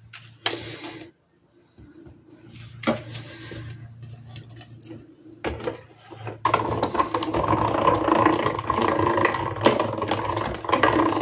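Cutting plates and a metal die being handled and set down with light clicks and taps, then, about six seconds in, a hand-cranked manual die-cutting machine running steadily with a mechanical rattle as it rolls the plate stack through to cut the paper.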